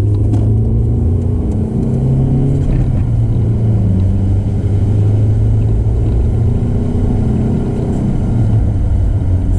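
Mercedes W203 C-Class's naturally aspirated four-cylinder engine, heard through a Supersprint aftermarket rear and middle silencer, with a steady deep exhaust drone while the car is driven. The pitch rises slightly about two seconds in and then settles back.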